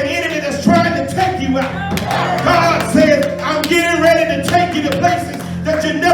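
A preacher's voice in a sung, chanted cadence, gliding in pitch from phrase to phrase, over steady held chords from an instrument.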